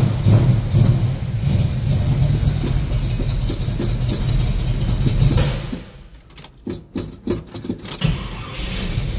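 1970 Chevrolet Nova's carbureted engine running just after a cold start, then nearly dying for about two seconds with a few ragged firings before it catches and runs again.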